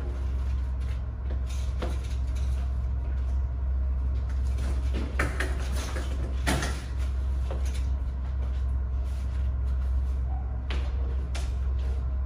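Metal shopping trolley loaded with cases of bottled water rolling over a tiled floor and through a doorway, rattling, with several sharp knocks and clatters. A steady low hum runs underneath.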